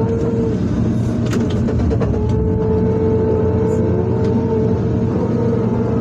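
Excavator engine running steadily under load during truck loading, with a steady high whine over it that drops out briefly about half a second in and returns about two seconds in. A few sharp knocks stand out around the middle.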